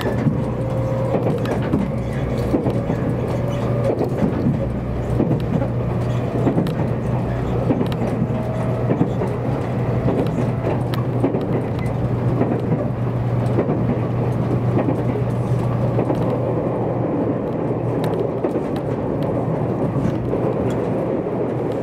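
Running noise inside the cabin of a JR Kyushu 783-series electric train at speed: a steady low hum and rumble with scattered faint clicks.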